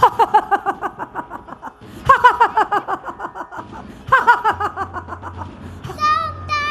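A child playing the demoness Tadka gives a loud, theatrical villain's laugh into a stage microphone, in three runs of rapid 'ha' pulses. About six seconds in, a held, sung-out voice line begins.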